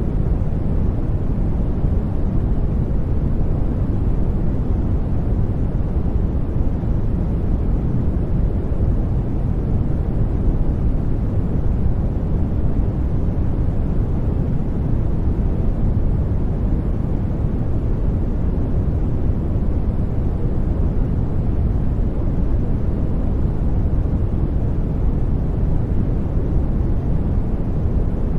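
A steady white-noise track: an even, deep rushing hiss, heavier in the lows than the highs, that does not change.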